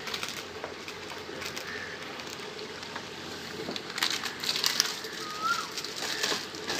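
Chicken and masala simmering and sizzling in a large aluminium cooking pot, with a spell of crackling about four seconds in. A bird gives one short whistled chirp near the end.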